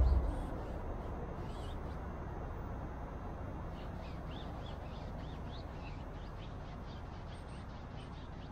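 Small birds chirping repeatedly in quick short calls, most often in the second half, over a steady low hum.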